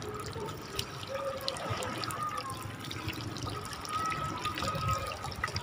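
Lake water lapping and trickling against a small boat's hull, with scattered small clicks and taps from fish and net being handled on the boat floor.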